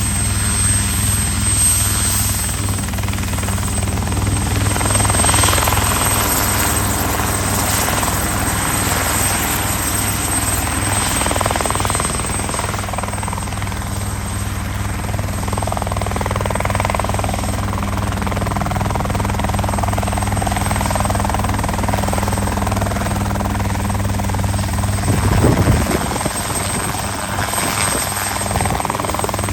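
Helicopter running steadily, a constant low rotor and engine drone with a brief louder rush of noise near the end.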